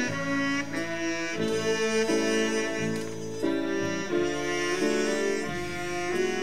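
Big band playing a slow jazz ballad live: the horn sections hold harmonised chords that change every half second to a second.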